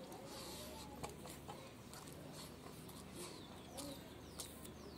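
Quiet eating by hand from steel bowls: a few light clicks and taps, the sharpest about a second in, with faint short high chirps of birds in the background.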